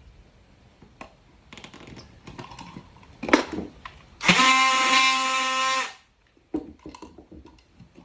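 Power drill running at a steady speed for under two seconds, about halfway through, with scattered knocks and clicks of handling before and after.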